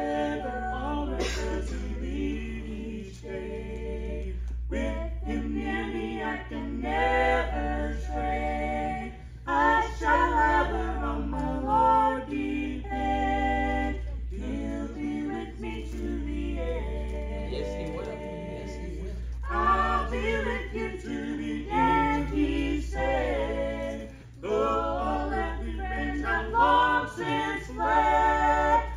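Four voices, men and women, singing a church song a cappella in close harmony, in phrases with short breaks between them, over a steady low hum.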